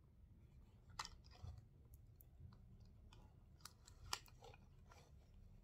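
Near silence with a low steady hum, broken by a few faint clicks and taps of plastic sunglasses being handled and put on, the clearest about a second in and about four seconds in.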